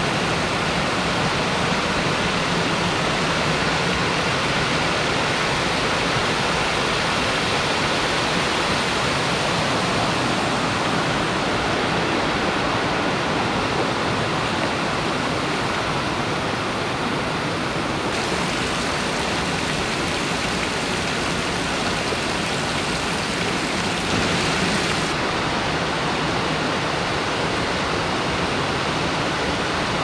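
Waterfall cascades pouring over tiered limestone shelves into pools: a steady, loud rush of water that brightens a little about two-thirds of the way through.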